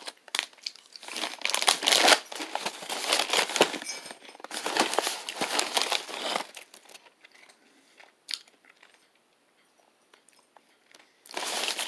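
Crispy wheat crackers being crunched and chewed close to the microphone: dense, crackly crunching for about six seconds, then it fades to quiet with a single click.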